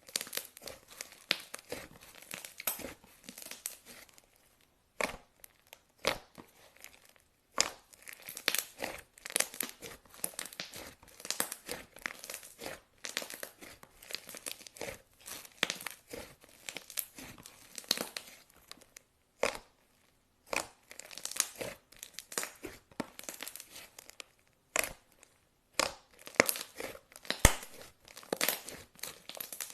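Clay slime being kneaded and pulled by hand, giving irregular sticky crackles, snaps and small pops with a few brief pauses.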